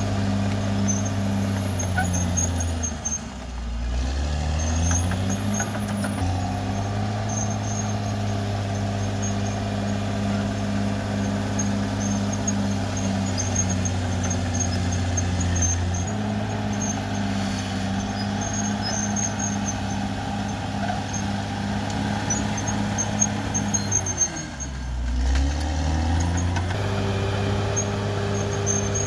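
Caterpillar D6R XL bulldozer's diesel engine running steadily under work, dropping in pitch and climbing back up twice, about three seconds in and near the end. A thin high whine runs along with it.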